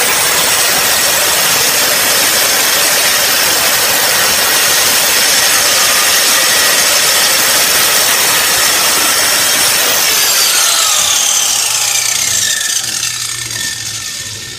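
Hyper Tough angle grinder's cut-off disc grinding through a hardened grade 8 steel bolt, a loud, steady grind. About ten seconds in it is switched off and the motor winds down, its pitch falling over several seconds.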